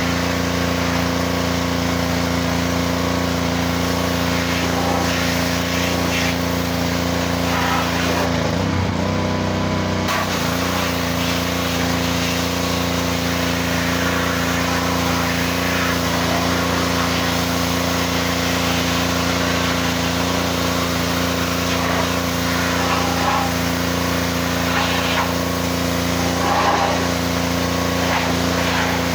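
Pressure washer running steadily, its motor drone holding one pitch apart from a brief dip and wobble about eight seconds in.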